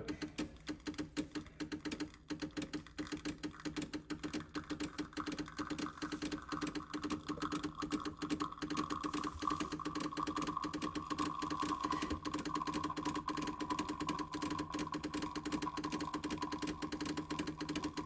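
Decent Espresso machine's pump pulsing rapidly and steadily while it pushes water through the puck during a slow espresso extraction, holding the pressure at about 7 bar. Over it runs a faint tone that slowly falls in pitch.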